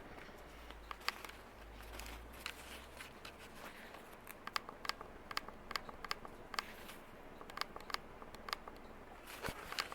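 A series of light, sharp clicks and taps at an irregular pace, thickest in the second half, over a faint steady background.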